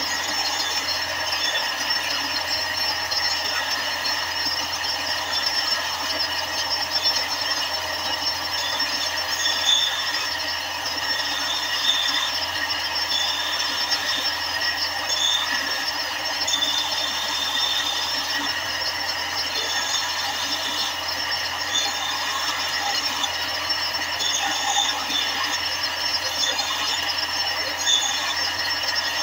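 Sanding of the steel kunai blade (forged from a leaf spring) to a shine: a steady abrasive hiss with short, sharper scrapes every second or two.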